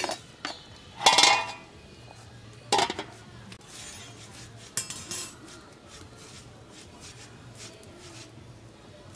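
Metal cookware clinking and clattering four times over about five seconds. The loudest, a little over a second in, rings briefly. The sounds are a metal spatula and an aluminium lid knocking against a metal karahi as the lid goes on.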